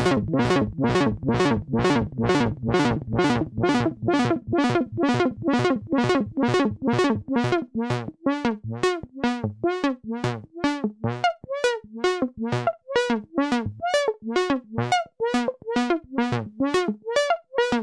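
Roland Juno-60 analog synthesizer playing an even, fast stream of short plucked notes, about three a second, each with a bending filter sweep. About eight seconds in the low end drops away and the notes jump more between pitches.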